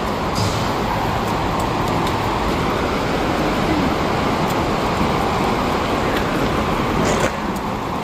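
Steady rushing noise of road traffic, with a brief sharp click about seven seconds in, after which it eases slightly.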